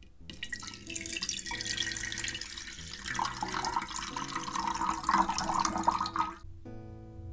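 Water pouring in a thin stream into an empty hammered metal pot, splashing and bubbling on the metal bottom, stopping abruptly about six seconds in.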